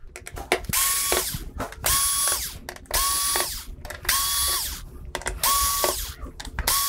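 Cordless drill/driver backing out the screws that hold a TV main board. It runs in six short bursts of about half a second each, roughly one a second, each a steady motor whine that drops away as the trigger is let go.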